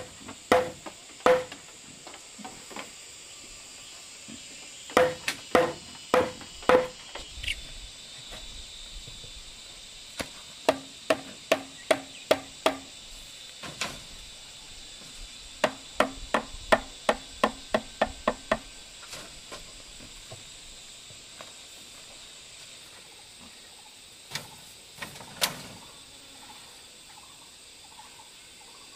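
Hollow, ringing knocks on bamboo as crossbars are driven into slots cut in bamboo posts: a few slow blows in the first seconds and around five seconds in, then two runs of quick taps about ten and fifteen seconds in. Crickets buzz steadily throughout.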